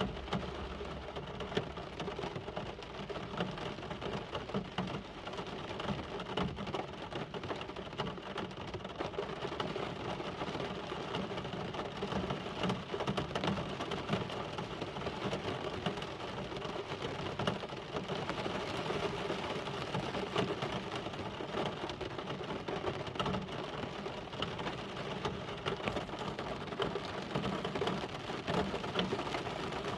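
Steady rain falling and pattering on surfaces, an even hiss full of small drop ticks.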